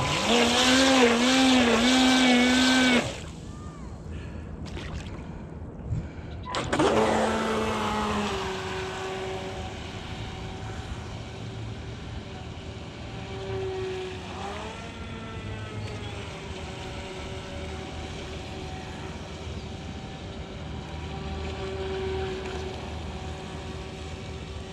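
Brushed electric motor of a Proboat StealthWake RC boat whining loudly at high speed for about three seconds, with a slight warble, while the boat is held at the water's edge with water spraying from its stern. After a short lull, a quieter motor whine starts high, drops and then runs steadily with small rises and falls in pitch.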